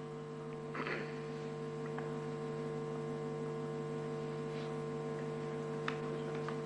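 Steady electrical mains hum, several even tones held without change, with a brief rustle about a second in and a few faint clicks.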